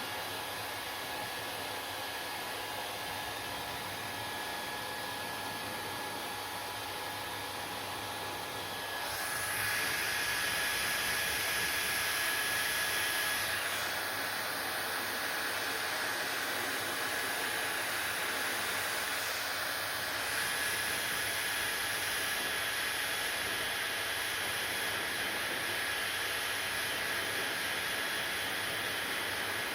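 Hair dryer blowing steadily with a faint whine. It grows louder and brighter about nine seconds in, and its tone shifts again a few times after that.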